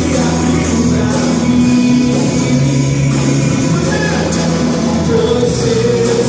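Christian worship song played by a band, with singing over held chords and a steady percussion beat.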